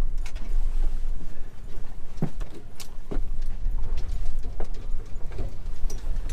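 Boat under way at slow trolling speed: a heavy, uneven low rumble of engine and water, with scattered clicks and knocks over it.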